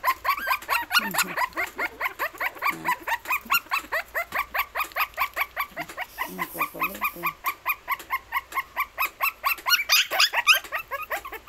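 Shih Tzu puppies whimpering and yipping in a rapid, unbroken run of short high cries, about six a second, with a few short low growls in between.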